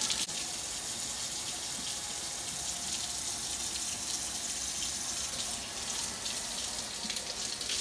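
Kitchen faucet running steadily into a stainless steel sink while celery stalks are rinsed under the stream.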